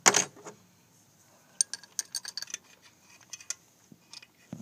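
Metal engine parts and a tool clinking and scraping as a part near the EGR valve of a 6.0 Powerstroke diesel is pried loose: a louder scrape right at the start, then a scatter of light, sharp clinks.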